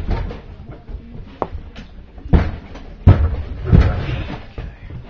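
A few knocks and clunks of things being handled and set down, three of them louder, with rustling between.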